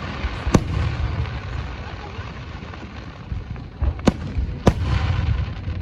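Fireworks going off: three sharp bangs, one about half a second in and two close together about four seconds in, over a low rumble of further bursts.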